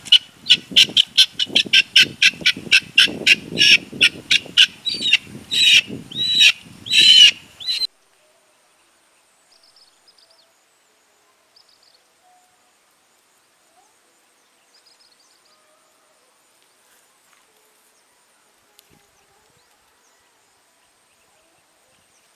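Helmeted guinea fowl calling in a rapid harsh run of short repeated notes, about three a second, the notes growing longer and louder before the calling stops abruptly about eight seconds in. After that only a few faint bird chirps are heard.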